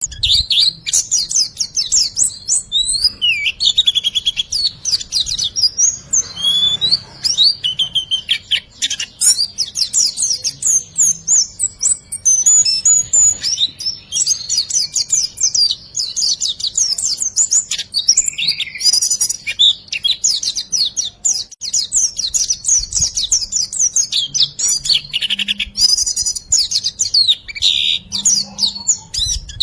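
A small songbird's 'riwikan' song: a rapid, unbroken run of high chirps and trilled notes, with quick rising and falling phrases.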